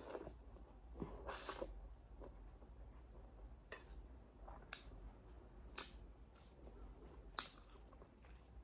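Close-miked eating sounds of a person eating thukpa noodle soup: soft chewing with a few sharp wet clicks, and a louder noisy burst about a second in.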